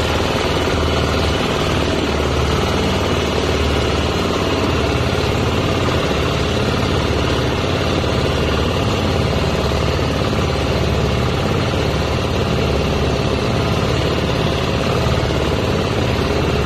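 A small wooden outrigger boat's engine running steadily as the boat moves under way, with an even rush of noise over it.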